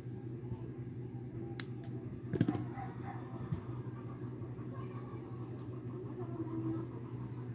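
A few light clicks and a tap from handling small parts and wire, the loudest about two and a half seconds in, over a steady low hum.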